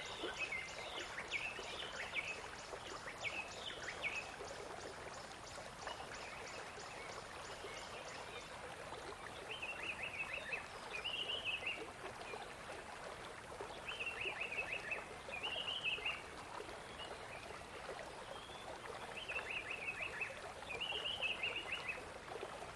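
Gulls calling in repeated clusters of short cries, several times, over the steady rush of a shallow stream.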